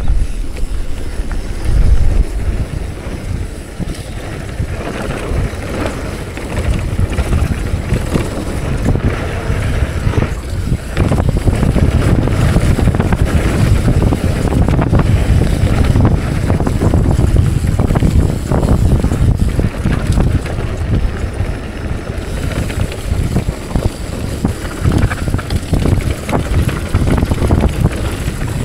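Wind buffeting the microphone and a mountain bike's tyres running over rough trail, with frequent short rattles and knocks from the bike.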